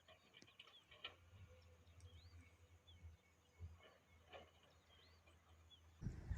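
Near silence with faint, scattered chirps of small birds in the distance. A louder sound begins right at the end.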